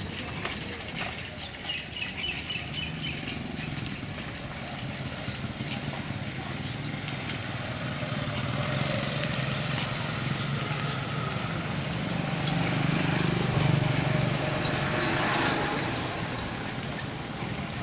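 Bus engine running with road noise during a ride. It swells louder about two-thirds of the way through, then eases off.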